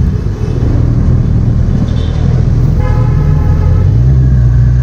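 Kawasaki Z1000's inline-four engine running with a rumble of road and wind while riding. A vehicle horn sounds once, briefly, about three seconds in.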